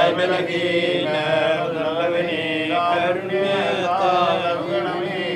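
Voices chanting a Malayalam Christian prayer, a slow sung melody in held notes that runs on without a break.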